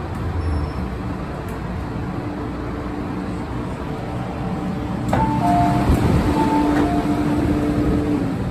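Hong Kong MTR M-train running with its traction motors humming as it comes into a station. About five seconds in a click is followed by a repeating two-tone chime as the doors open.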